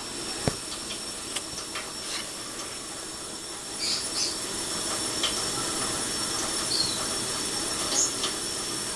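Steady hiss of water, a little louder from about four seconds in, as a cockatiel and a lovebird bathe, with a few sharp splashes or knocks and several short, high chirps.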